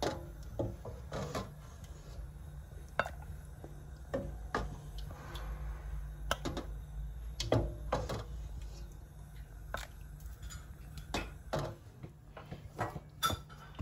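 Scattered clinks and knocks of a metal ladle against a steel pot and a ceramic bowl as dal is served, over a steady low hum.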